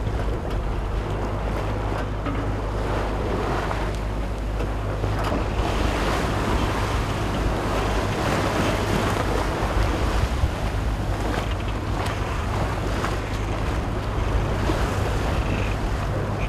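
Wind buffeting the microphone over choppy open sea, with waves splashing and rushing water. It is a steady, even noise with a heavy low rumble throughout.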